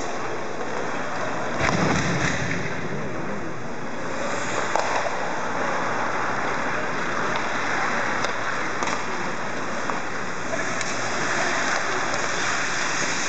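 Reverberant ice-hockey practice noise: a steady hiss of skates on ice, broken by a few sharp clacks of sticks and pucks and a dull thud about two seconds in.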